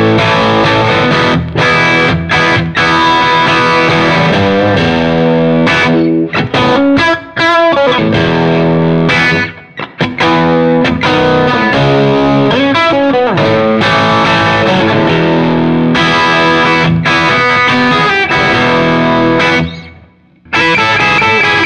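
Electric guitar played through the Top Boost channel of a 1964 JMI Vox AC30 valve amplifier: sustained chords and riffs, with a short break a little before halfway and a brief silence shortly before the end.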